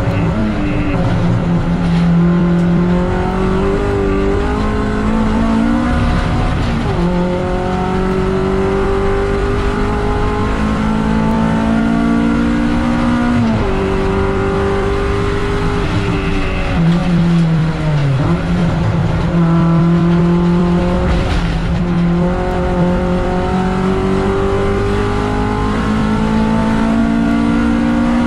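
MG ZR 170 race car's K-series four-cylinder engine at full racing effort. The revs climb in long pulls and drop sharply at each gear change, with one longer fall about two-thirds through.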